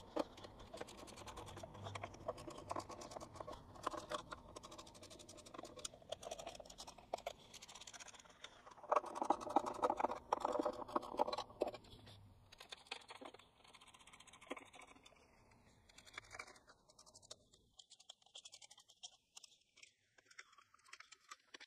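Ratchet of a torque wrench clicking in quick runs as the oil pan bolts are snugged down to about 14 newton meters, loudest about nine seconds in. The clicking thins out and fades away near the end.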